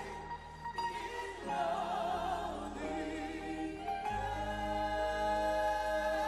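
Slow worship music: long held sung notes with vibrato over sustained keyboard chords and bass. The chord changes about a second and a half in and again about four seconds in.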